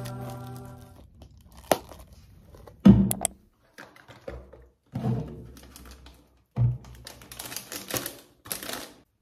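Vocal nasheed music fading out in the first second, then close handling noises: plastic crinkling, a sharp click, and three dull thumps of things being set down.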